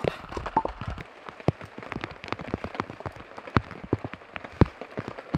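Rain falling, with heavy drops tapping irregularly and sharply on a nearby surface, several taps a second.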